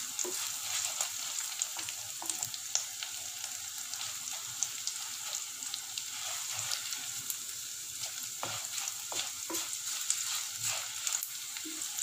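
Green chillies, dried red chillies, curry leaves and chana dal sizzling in oil in a clay pot, with frequent small crackles, while a wooden spoon stirs and now and then knocks against the pot. The dal is frying until it reddens, ready for the ginger.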